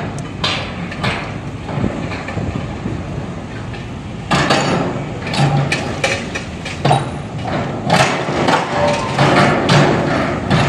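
Crane-mounted pile hammer striking a concrete pile, a run of repeated heavy impacts over a steady machine rumble. The blows come more often and louder from about four seconds in. The hammer is being worked lightly because the pile is only being started and has to go in straight, and it sinks quickly into the still-soft ground.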